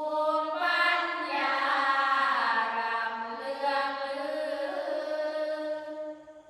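A sarabhanya troupe chanting a phrase of Thai Buddhist sung verse: long held notes that slide up and down in pitch, ending about six seconds in.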